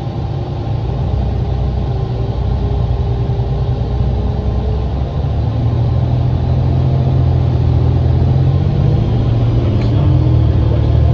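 Cummins ISL diesel engine of a 2007 New Flyer D40LFR transit bus pulling away and gathering speed, heard from inside the passenger cabin: a steady low rumble that grows louder, with a faint whine that rises twice.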